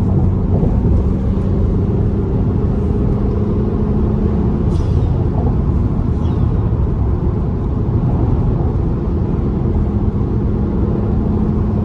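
Fiat Bravo driving at steady highway speed, heard from inside the cabin: a continuous drone of engine and road noise with a steady low engine hum.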